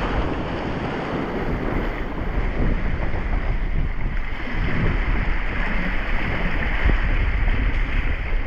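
Strong wind buffeting the microphone over the rush and splash of water along the hulls of a Hobie Tandem Island sail-kayak sailing through rough, choppy water. A steady, deep rumbling noise throughout.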